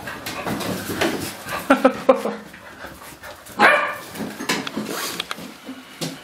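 Golden Retriever puppies playing, giving a few short barks and yips, the loudest about three and a half seconds in, with scuffling paws on a tile floor.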